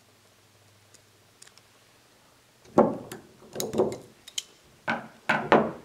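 Snap ring pliers and a steel snap ring being worked into the groove of a spool valve housing. After a couple of seconds of near silence, a run of sharp metal clicks and knocks begins.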